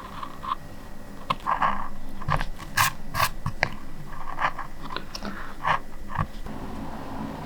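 Linoleum cutter gouging into a lino block: a run of short, crunchy scraping strokes and a few sharp clicks, starting about a second in and easing off near the end.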